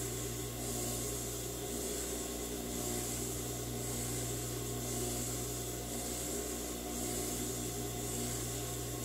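Cotton fabric rubbing and rustling as a sewn placemat is handled and turned right side out, over a steady low hum.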